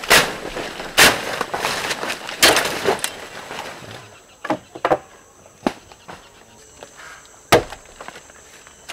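Machete blows chopping into a standing tree trunk: three heavy strikes in the first three seconds, then lighter, irregular chops.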